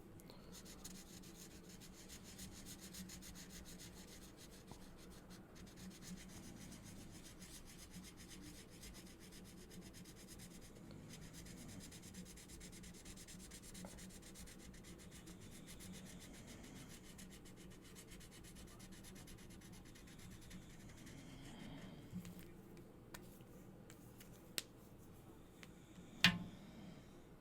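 Marker tip rubbing quickly back and forth on paper while colouring, a faint steady scratchy scribble. It eases off after about twenty seconds, giving way to a few light taps and one sharp click near the end.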